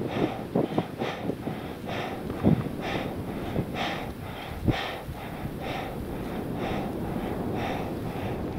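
A climber's rapid, heavy breathing from exertion at high altitude, short puffs about two a second, over a low wind rumble on the microphone, with a couple of low thumps.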